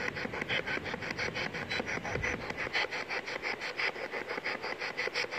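Spirit box sweeping through radio stations: choppy static cut into rapid, even bursts, about seven a second.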